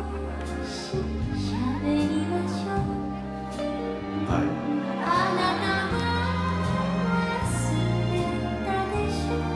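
Music playing, with long held bass notes and chords that change every second or so.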